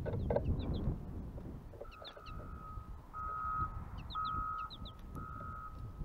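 Small birds giving short, high chirps again and again, while a vehicle's reversing alarm starts beeping steadily about two seconds in, about once a second. A low rumble of outdoor background noise runs underneath.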